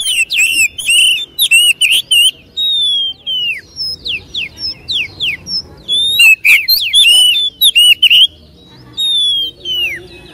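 Oriental magpie-robin (kacer) singing a loud, vigorous song. Clear whistled notes slide down in pitch, broken by rapid chattering warbles in the first two seconds and again from about six to eight seconds in.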